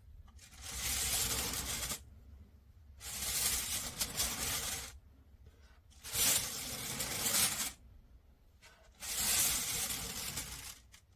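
The plastic rotating top of a Totally Tactile Communicator being turned by hand, grating against its base. It is turned four times, each turn about one and a half to two seconds long, with short pauses between.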